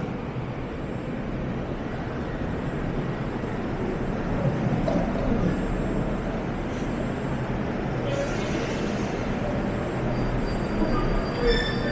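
Metro train rumbling into the underground station, the noise slowly growing, with the wheels starting to squeal near the end as it brakes for the platform.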